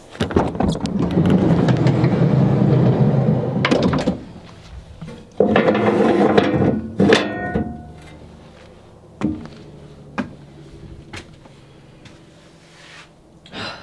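Loud scraping and rumbling from a door or panel being moved, then a few separate knocks about a second apart.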